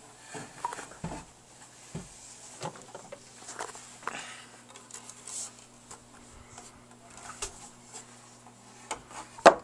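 Scattered light knocks, rustling and handling noise of someone moving about a wooden bunk bed, with one sharp knock near the end.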